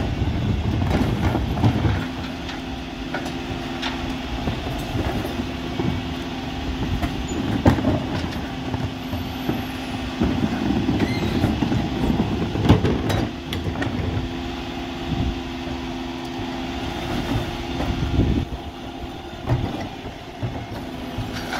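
Refuse truck running with a steady hum while wheelie bins are rolled across the road and tipped by the bin lifts into the hopper, with plastic rattles and clattering knocks, the sharpest about 8 and 13 seconds in.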